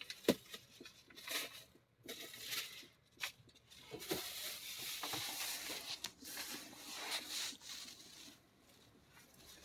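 Intermittent rustling and scraping handling noises in short bursts, with a longer, denser stretch from about four to eight seconds in.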